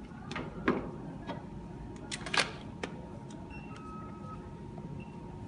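Sharp plastic clicks and knocks as a 3D HIFU machine's handpiece is handled, in the first three seconds, then a few short electronic beeps from the machine at two pitches. A faint steady high tone runs underneath.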